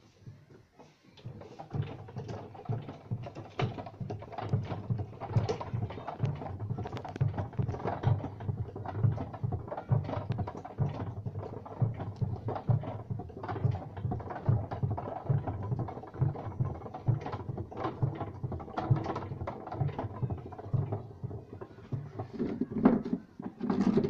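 Homemade pedal-and-crank washing machine running: a bicycle chain over a sprocket turns the inner plastic drum inside the fixed outer drum. It makes a continuous uneven clatter of chain and metal linkage with repeated low knocks, starting about a second in.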